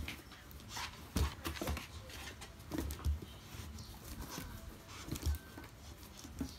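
Irregular soft knocks and scuffs on a small cardboard box as a dog pushes its nose into it and a kitten inside paws back, about five dull bumps over several seconds.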